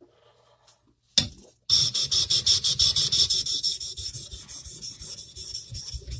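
A carbon-steel honesuki boning knife's wide bevel being stroked flat back and forth on a wet sharpening stone to thin it. It makes a steady rasping rub at about five strokes a second, which starts after a short knock at about a second in.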